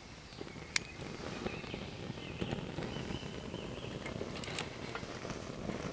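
Kindling catching fire in a small folding steel camp stove, lit from a gel fire starter on a stick: a soft rush of flame that grows steadily louder, with scattered crackles and a sharp click under a second in.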